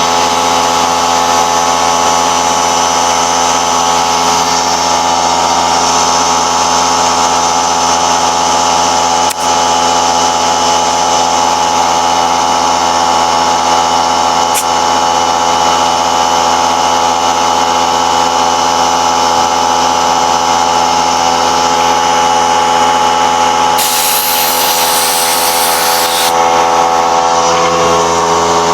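A power tool's motor running steadily at one pitch without a break, with a brief high hiss near the end.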